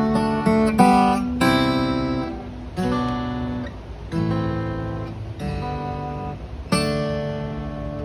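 Taylor 914ce acoustic guitar played fingerstyle: a slow passage of plucked notes and chords, each chord struck and left to ring out and fade before the next, with fresh chords about a second in, at about one and a half, three and four seconds, and again near the end.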